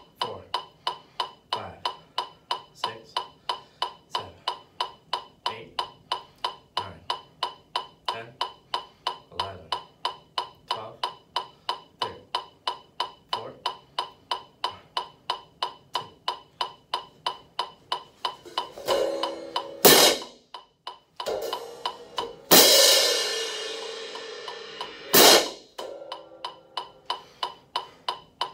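A metronome clicks steadily, about three times a second. In the last ten seconds a pair of hand crash cymbals is struck several times, with one crash left to ring and fade over a couple of seconds.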